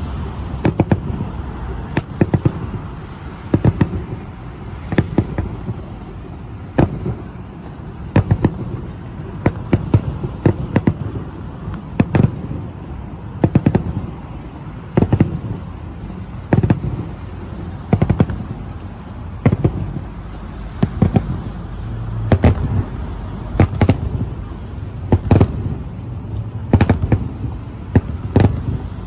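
Aerial firework shells bursting one after another in a finale barrage: sharp booms, often two or three in quick succession, every second or two, over a continuous low rumble.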